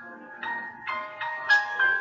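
Background music: a light melody of short, ringing notes, about five in quick succession.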